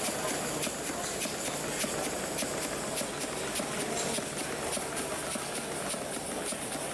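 Model multi-cylinder engine with an open crankshaft running, a fast, slightly uneven ticking from its moving parts over a steady hiss.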